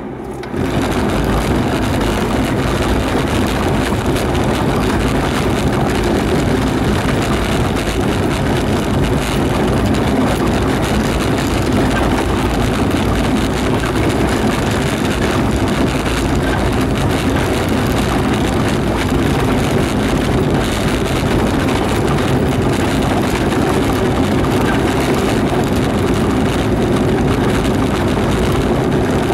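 Renault Supercinco Campus being driven, its engine and tyre noise heard from inside the cabin. The sound steps up sharply about half a second in, then runs steadily.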